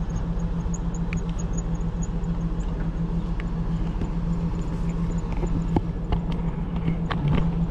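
A vehicle engine running steadily, a low, even drone, with a few faint clicks and knocks over it.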